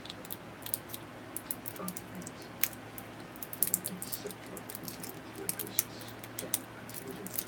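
Small cosmetic packaging being handled and opened by hand: irregular light clicks, taps and crinkles, busiest in the second half.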